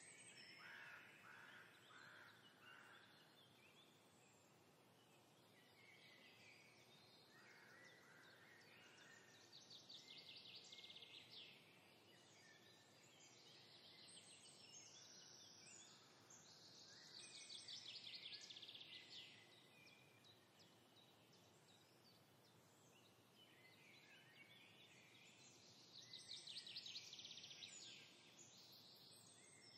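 Faint songbird song: high chirping phrases, with a rapid trill about every eight seconds.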